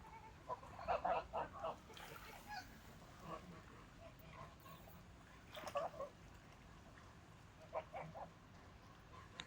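Domestic geese honking in short, quick calls in three groups: a run of calls about a second in, another burst around the middle, and a few more near the end.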